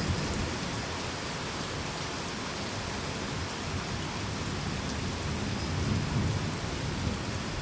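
Heavy rain falling steadily in a thunderstorm, with low rumbles of thunder, one swelling about six seconds in.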